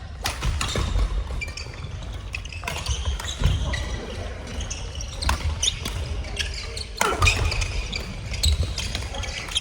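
Play in an echoing sports hall: sharp racket hits and low thuds of footfalls on the court floor, with brief shoe squeaks, at irregular intervals.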